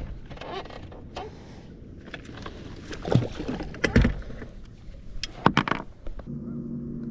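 Clunks and knocks as a Minn Kota bow-mount trolling motor is handled and lowered into the water off the bow. About six seconds in, the trolling motor starts a steady electric hum.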